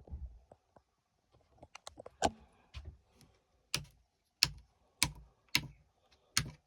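Switches on a 5-way 12V switch panel being flicked: a series of sharp clicks, a few faint ones first, then about six loud ones roughly every half second to second, after a low thump at the start.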